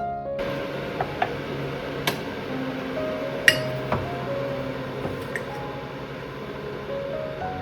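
Soft background music with held notes, with about five sharp clinks in the first four seconds, the loudest about three and a half seconds in.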